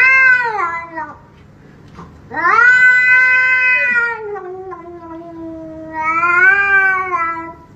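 A cat yowling in long, drawn-out wavering calls. One call ends about a second in, then a much longer yowl starts, dips, rises again and fades out near the end.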